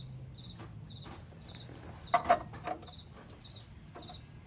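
A cricket chirping steadily, high-pitched, about two chirps a second. A little after two seconds in come a few sharp metallic clinks, the loudest sounds, from an adjustable wrench working on the air-filter fitting.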